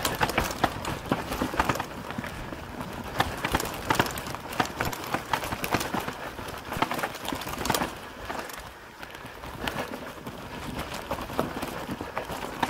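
Mountain bike clattering down a rough trail: a dense, irregular run of knocks and rattles from tyres striking stones and the frame and chain shaking. It eases off a little in the last third.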